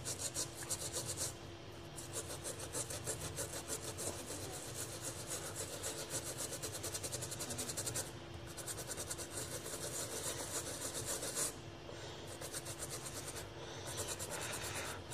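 Small brush scrubbing a corroded, water-damaged phone motherboard in rapid short strokes, with a few brief pauses.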